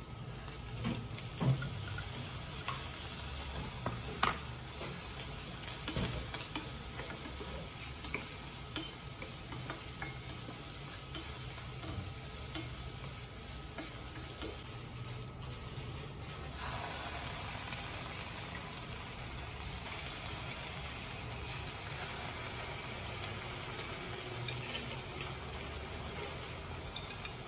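Food frying and sizzling in a saucepan while a wooden spatula stirs it, knocking and scraping against the pan a few times in the first seconds.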